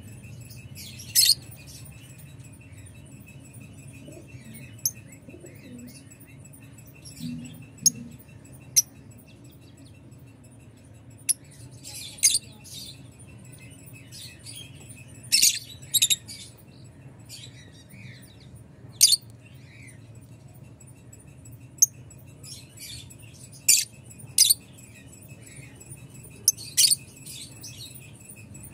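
Lovebirds giving short, sharp, high-pitched chirps at irregular intervals, over a steady low hum.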